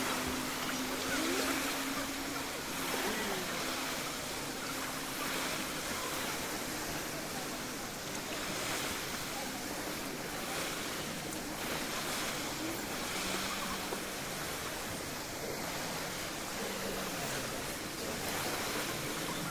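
Small sea waves washing gently onto the beach, the surf swelling every couple of seconds, with a faint low steady hum in the first few seconds.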